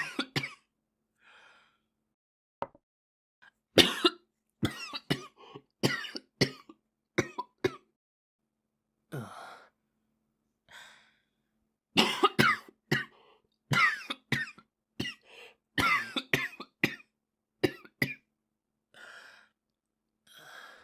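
A boy coughing in repeated bouts of several quick coughs, with fainter breaths in the pauses between bouts.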